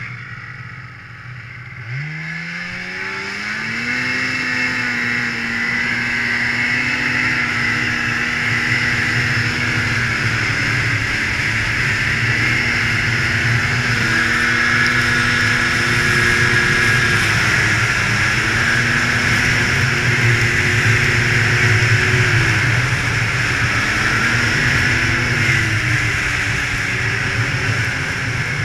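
Polaris Indy 500 snowmobile's two-stroke engine pulling away about two seconds in, its pitch climbing, then running at a steady cruising speed over a constant hiss. It has a few brief dips and recoveries in pitch as the throttle eases off and comes back on.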